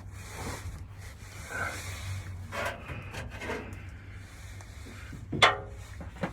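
Scraping and rubbing from hands and body moving around the pedal linkage under a truck's dashboard, with one sharp metallic clink about five and a half seconds in.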